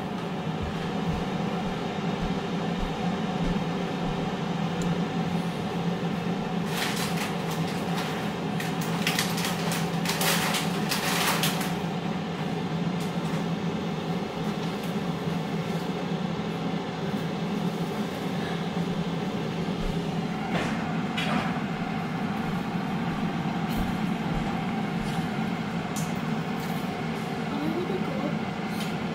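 Power XL air fryer running, its fan giving a steady hum that comes up at the very start. A cluster of sharp clicks and knocks about a third of the way in, and two more a little past the middle.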